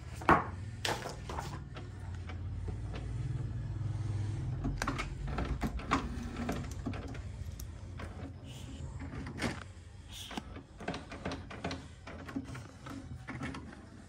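HP Ink Tank 319 inkjet printer running its start-up initialization after being switched on. Its motors hum while the print carriage and feed mechanism move, with a sharp click at the start and irregular clicks and clacks throughout.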